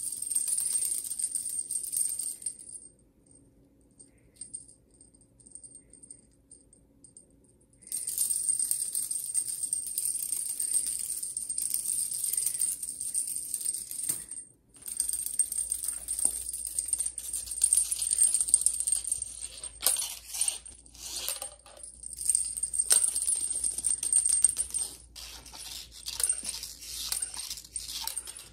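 Small bell and beads on a feather wand cat toy jingling and rattling as the wand is waved about. It falls quiet for about five seconds a few seconds in, and briefly again near the middle.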